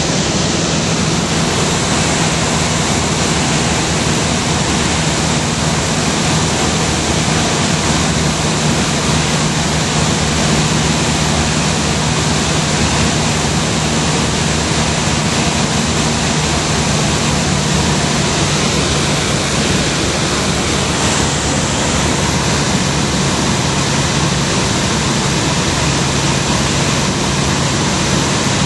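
Steady cabin noise of a high-wing light aircraft in cruise: the engine and propeller drone as a low steady hum under a loud, even rush of air.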